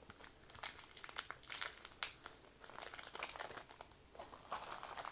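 Plastic trading-card booster pack wrapper crinkling in the hands as it is opened, a string of irregular sharp crackles and rustles.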